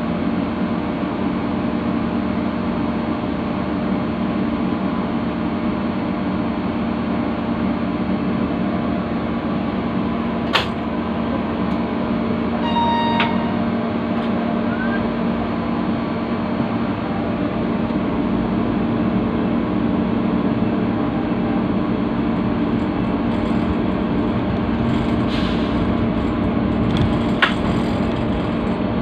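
Diesel locomotive engine running steadily under light load as the loco creeps along the track, with two sharp knocks, one about ten seconds in and one near the end.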